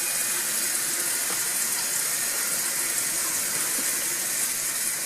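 A newly fitted toilet fill valve running, water hissing steadily as it refills the tank after installation.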